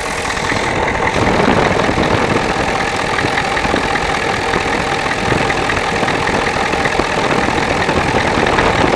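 Ford tow truck's diesel engine idling steadily, heard loud and close up in the engine bay by the injection pump, a little louder from about a second in.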